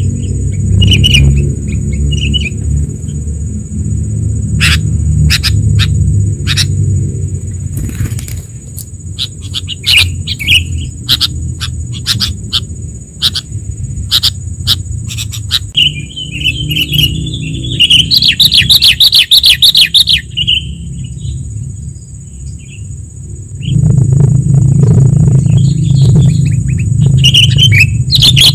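Sooty-headed bulbul (kutilang) calls from a bird-lure recording: sharp chirps and bubbly chattering phrases, with a long run of chatter about midway and more near the end. Beneath them runs the low rumble of a motorcycle on the move, and a steady thin high tone sits over everything.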